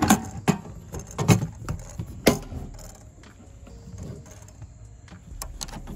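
Steel .50 cal ammo can being closed and latched: four sharp metal clanks in the first two and a half seconds, then quieter knocks and rattles as the can is handled.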